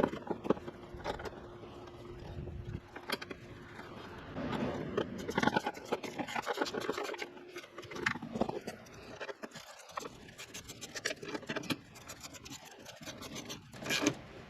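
Intermittent scraping and small clicks of parts being handled and fitted in the engine bay, the kind of sound a plastic cover makes as it is worked over the throttle cable. A faint steady hum runs through the first half.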